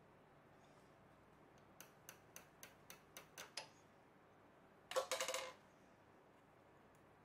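Needle-nose pliers fitting a tiny coil spring into a small metal arm on a steel shaft make a run of about eight light metal ticks, roughly four a second. About five seconds in comes a louder, brief rattle of clicks with a short metallic ring.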